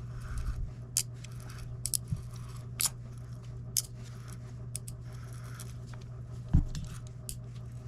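Small metal clicks and clinks of fishing-reel parts being handled and fitted together by hand, with a duller knock about six and a half seconds in.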